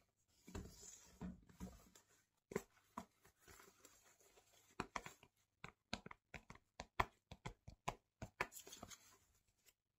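Fingers tapping and scratching on the rubber soles of a pair of black knit trainers, close to the microphone: soft handling at first, then a run of sharp, irregular taps from about two and a half seconds in, stopping just before the end.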